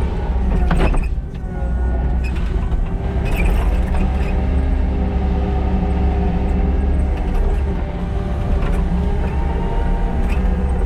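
Kubota SVL97-2 compact track loader's four-cylinder turbo diesel running steadily under load while grading crusher run, with a few short knocks and clanks.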